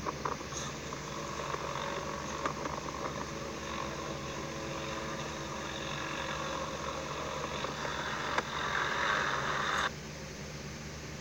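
A vehicle's engine running steadily, a low hum under a hiss of noise; the hiss stops abruptly near the end while the hum goes on.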